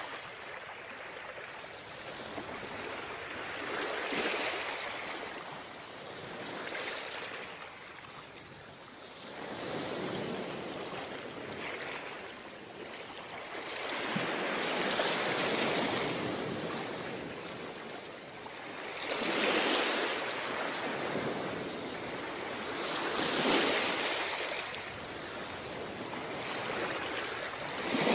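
Ocean surf breaking on the beach: a steady wash of water with waves surging and falling back about every four seconds.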